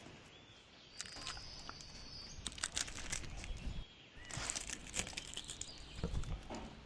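Dry rustling and crackling in two stretches, with a few faint bird chirps behind it.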